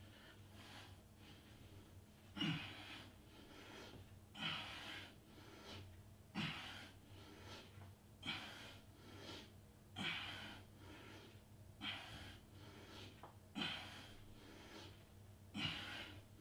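A man breathing hard from exertion during Superman back-extension reps: a short, forceful exhale about every two seconds, eight in all.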